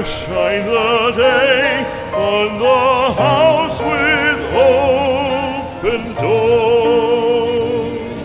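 Operatic singing with a wide vibrato over instrumental accompaniment, the voice holding long notes in phrases with short breaks between them.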